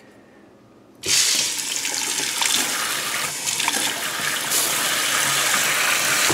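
Kohler semiprofessional pull-down kitchen faucet turned on about a second in, its spray-mode streams hissing steadily onto a stainless steel sink basin and bottom grid, then shut off abruptly.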